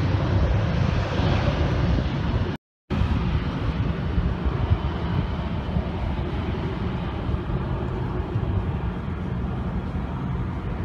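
Airliner jet engines running at power as the jet moves down the runway, a steady rumble. It cuts out for a moment about two and a half seconds in, and a similar, slightly quieter steady rumble follows.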